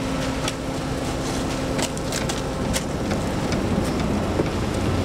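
A motor vehicle running, a steady engine hum with scattered sharp ticks over it.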